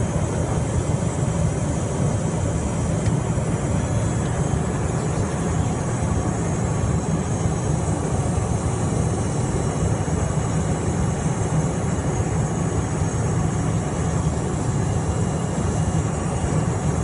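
Steady cockpit noise of a Cessna Citation Mustang light jet in flight on approach: rushing airflow and the hum of its two rear-mounted Pratt & Whitney PW615F turbofans, even and unchanging throughout.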